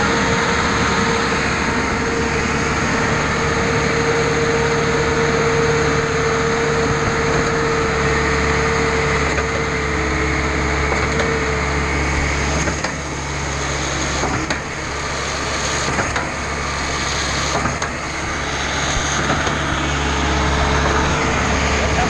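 Reed A40 trailer concrete pump running steadily just after start-up: a steady engine hum with a whine over it that fades out in the middle and comes back near the end.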